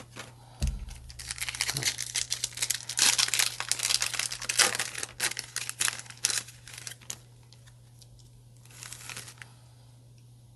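A foil trading-card booster pack wrapper crinkling and tearing as it is ripped open, a dense crackle lasting several seconds, with a shorter crinkle near the end.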